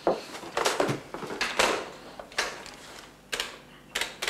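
A desk telephone being handled and dialled: a series of sharp, irregular clicks and knocks from the handset and keys.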